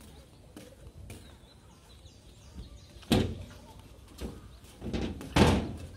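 Several irregular dull thumps with a rustle to them, the first sharp one about halfway through and the loudest near the end, over faint chirping of birds.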